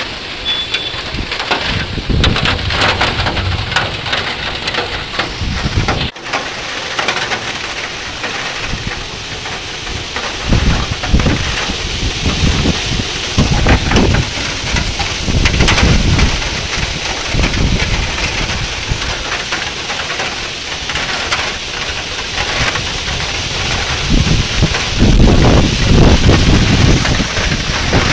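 Rain falling steadily as the monsoon rains begin. Gusts of wind rumble on the microphone in uneven surges, loudest near the end.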